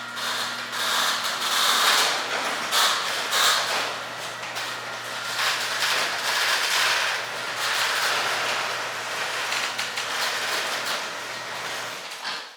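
Electric garage door opener running as the door travels, a steady motor hum under a continuous rattling and clattering of the door in its tracks, stopping near the end.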